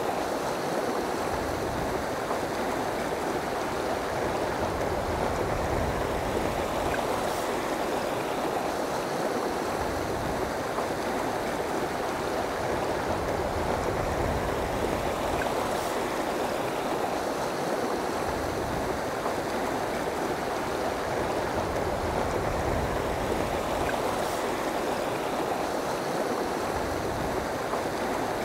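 Steady rushing of a shallow river running over rocks and riffles, an even wash of water noise with an uneven low rumble beneath it.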